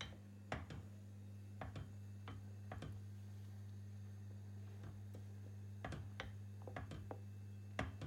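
Wooden spoon stirring curdling milk in a stainless steel pot, giving light, irregular clicks and knocks against the metal, over a steady low hum.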